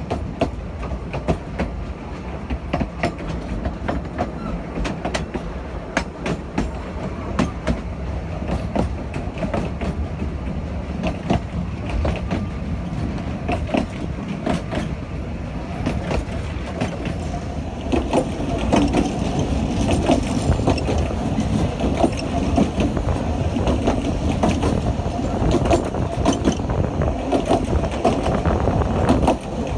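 Steam train hauled by a 1913 American-built locomotive running along the line, heard from a carriage: a steady rumble with the wheels clicking over the rail joints, growing louder about eighteen seconds in.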